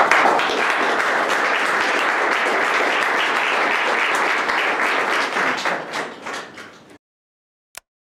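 Audience applauding at the end of a talk. The clapping runs steadily, thins out after about five seconds, then cuts off abruptly.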